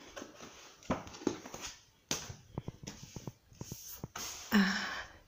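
Colouring books being handled on a wooden table: a book shut and set aside and the next one picked up. Irregular taps, knocks and paper rustles, with a louder rustle near the end.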